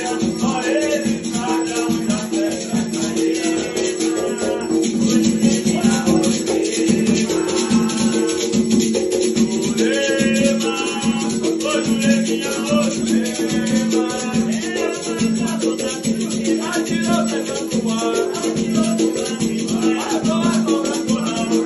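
Music: a song with singing over a busy shaker rhythm and plucked strings.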